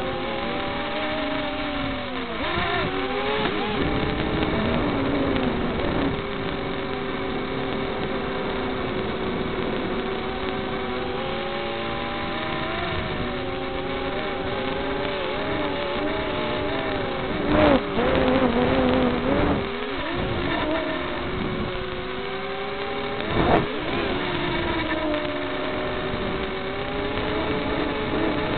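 Micro quadcopter's small brushed motors whining, their pitch sliding up and down with throttle. Two sharp knocks come through, one a little past the middle and one later on.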